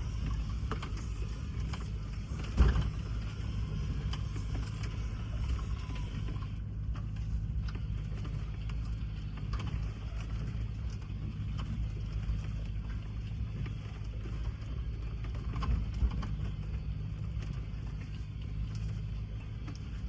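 Land Rover Discovery's engine running steadily at low speed as it crawls over rough trail, with scattered knocks and rattles from the body and suspension. A sharp loud thump comes about two and a half seconds in, and a smaller one about sixteen seconds in.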